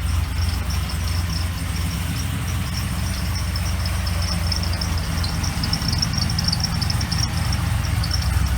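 Supercharged LS2 V8 idling with a chirp from the serpentine belt drive: a rapid, high-pitched chirping over a steady engine hum. The owner suspects a pulley issue, maybe the belt.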